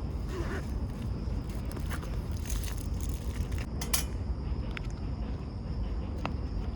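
Outdoor ambience: a steady low rumble with a thin, steady high insect-like buzz, and a few short clicks and rustles of gear being handled about two to four seconds in.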